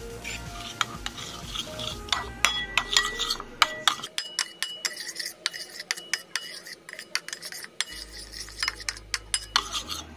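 Metal spoon stirring mayonnaise and milk in a ceramic bowl, clinking against the bowl's sides in quick, irregular strikes, each with a short ring. The clinking starts about two seconds in.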